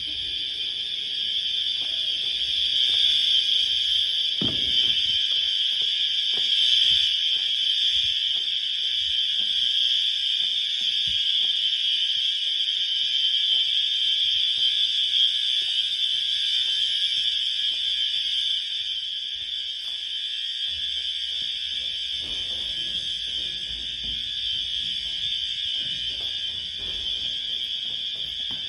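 System Sensor fire alarm horns sounding continuously during an inspection test: a steady, loud, high-pitched blare with no breaks. A few faint knocks lie under it.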